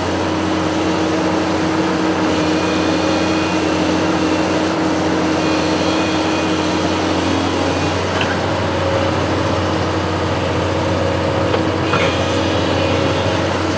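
Construction machine's engine running steadily at a constant speed, a continuous low hum.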